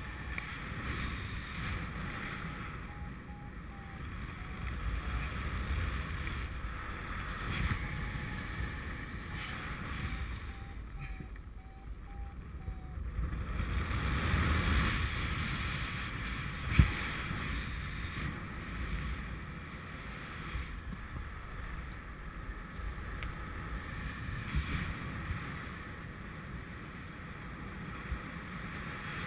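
Airflow rushing over the GoPro's microphone in paragliding flight: steady wind noise with low buffeting. Twice there is a short run of faint, quick beeps from the flight variometer, a few seconds in and again around ten to thirteen seconds in. A single sharp knock comes about seventeen seconds in.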